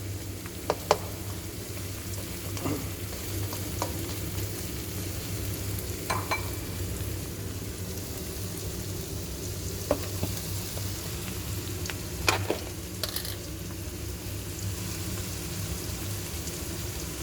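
Chopped onions frying in oil in a kadai, sizzling steadily while a spatula stirs them, with a few short knocks and scrapes of the spatula against the pan.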